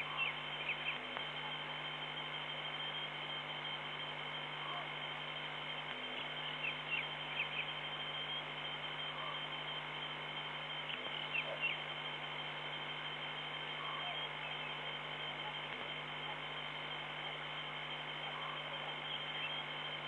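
Steady electrical hum and a high whine from the live-stream audio feed. Over it come short runs of quick, high chirps from night creatures about every four to five seconds, with fainter soft calls in between.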